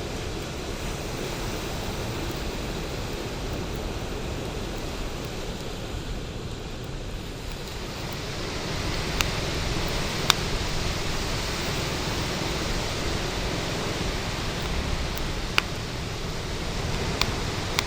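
Bonfire burning with a steady rushing, rumbling noise, broken by a few sharp pops and crackles in the second half.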